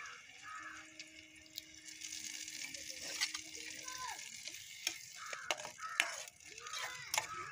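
Spice masala mixed with water sizzling in hot oil in a frying pan, with a spoon scraping and clicking against the pan as it is stirred.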